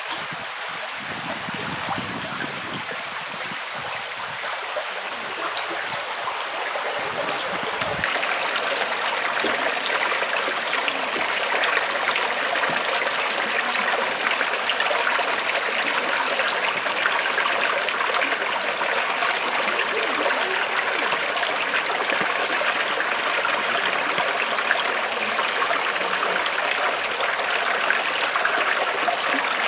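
Shallow creek running steadily over gravel and rocks, growing louder about eight seconds in.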